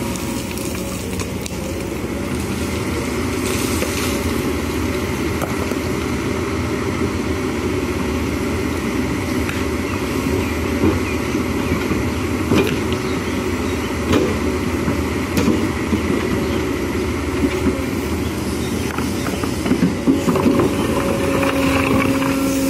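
Kobelco SK210HD hydraulic excavator running steadily under load as it digs, with scattered knocks and clatter of stones and gravel against the bucket. A steady hum comes in near the end.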